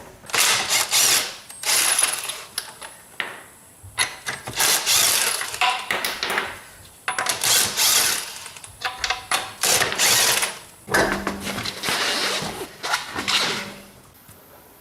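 Hand ratchet with a 22 mm socket clicking in several quick runs of one to two seconds each, backing the lug nuts off a car wheel.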